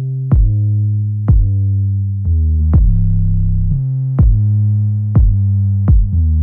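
Background music: an electronic track with a steady drum-machine beat over deep sustained synthesizer bass notes.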